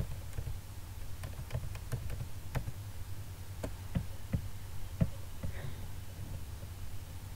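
Computer mouse clicks, about a dozen sharp clicks at uneven intervals as text is selected and scrolled, over a low steady hum.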